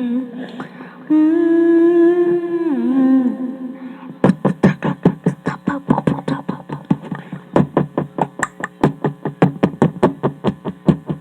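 A girl's voice humming a long wavering note into a karaoke microphone that slides down near the three-second mark, then a fast, steady rhythmic pulse of about four beats a second takes over.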